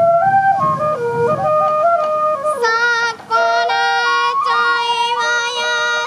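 Japanese bamboo flute (fue) playing a stepping melody of traditional Sansa odori festival music, with a second, brighter melodic line joining about halfway through.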